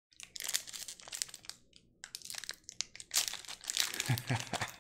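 Foil trading-card pack wrapper crinkling and crackling as it is handled and torn open by hand, in quick irregular runs with a short pause a little under two seconds in.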